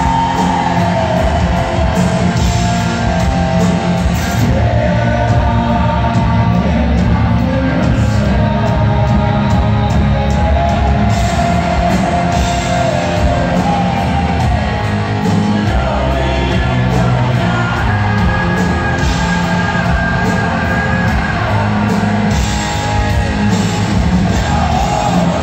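Rock band playing live: electric guitars, bass and drums with a sung vocal line, heard from within the crowd in a large hall.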